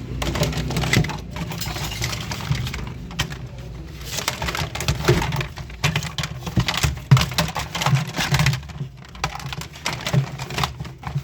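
Irregular plastic clicks, cracks and rattles of a toy gun's parts being handled and fitted together.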